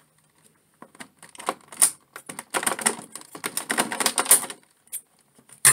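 Clear plastic blister-tray packaging crinkling and crackling as it is handled and worked loose, in two long runs of dense crackles with a sharp snap near the end.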